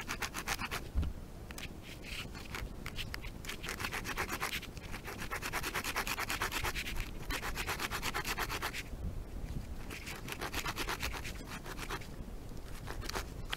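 The saw-toothed spine of a homemade knife cut from an old saw blade, sawing back and forth through wood in steady strokes.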